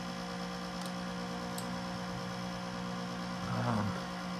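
Steady hum of a running Macintosh SE, mostly its cooling fan, which the owner believes is abnormally loud. There are two faint mouse clicks in the first two seconds and a short murmured voice about three and a half seconds in.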